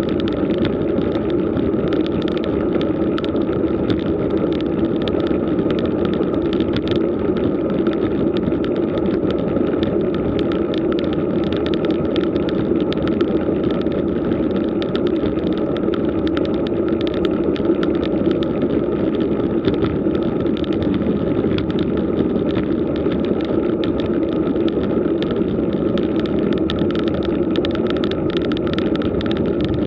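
Road bike rolling up a rough asphalt climb, heard through a camera mounted on the bike: a steady rumble of tyre and road noise with many small clicks and rattles.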